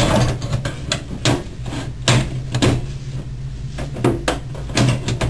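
Computer case side panel being fitted back on: a series of knocks and clatters, about half a dozen spread over a few seconds.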